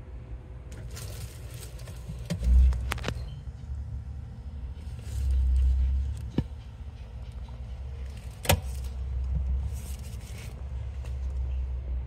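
Handling noise from a handheld camera being moved about: an uneven low rumble with two heavier bumps, about two seconds in and again around five to six seconds, and a few sharp clicks and scrapes, the loudest click near the nine-second mark.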